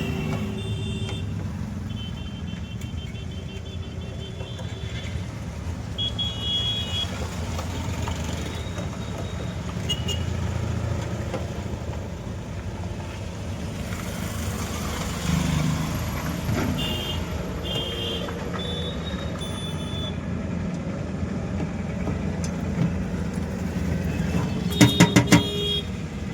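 Steady background rumble of road traffic, with short high-pitched beeps several times and four quick, loud pulses near the end.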